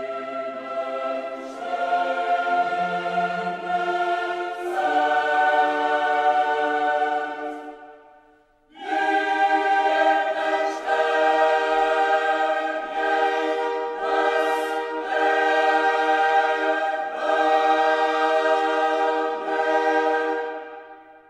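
Background music of a choir singing slow, held chords. It breaks off briefly about eight seconds in, resumes, and fades out near the end.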